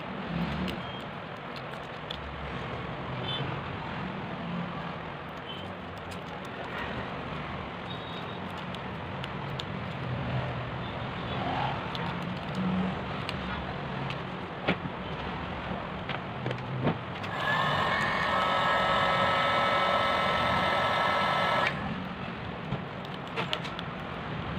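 Steady background street and room noise with scattered light clicks as small phone parts are handled and pressed into place. About two-thirds of the way through, a loud steady whine with several fixed tones starts abruptly and cuts off after about four seconds.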